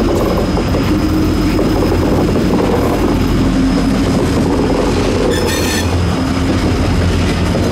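Diesel freight locomotives passing close by under power: a loud, steady low engine drone with the rumble of wheels on rail. About five and a half seconds in, a brief high squeal rings out.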